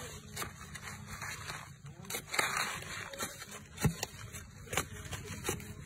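Metal digging tool chopping and scraping into dry, crumbly soil and stones: a series of sharp knocks, with a longer scraping rasp about two and a half seconds in and the loudest knock nearly four seconds in.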